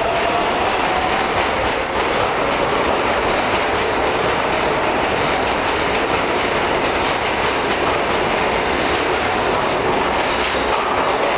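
Subway train running through the station: a loud, steady noise of wheels on rails, with a few brief high metallic squeals from the wheels, one near the start and one about seven seconds in.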